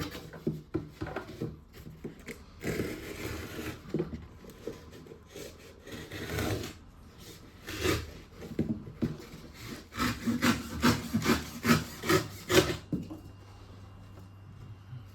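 Knife sawing and scraping through thick cardboard in irregular rasping strokes, with a quicker run of a dozen or so strokes about ten seconds in, then stopping near the end.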